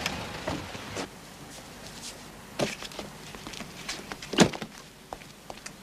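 Small clicks and knocks, then a car door slammed shut about two-thirds of the way in.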